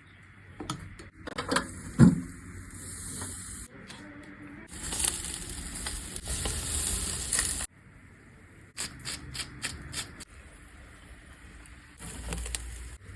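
Lamb chops sizzling over a wood fire, heard in several short cuts, with a sharp knock about two seconds in and a few clicks later.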